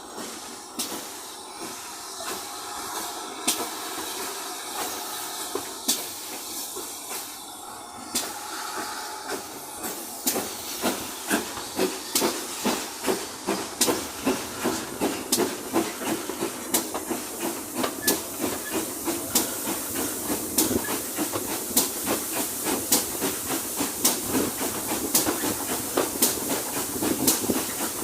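GWR Large Prairie 2-6-2 tank steam locomotive 4144 hissing steam, then setting off: sharp exhaust beats begin about ten seconds in and quicken and grow louder as it gathers speed.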